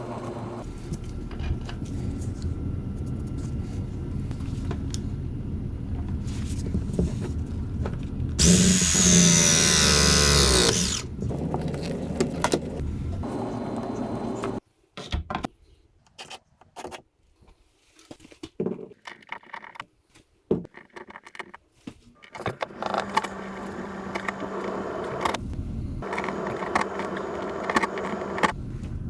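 A power drill runs for a couple of seconds, its pitch gliding up and down, amid steady work noise. Scattered knocks and handling clicks follow.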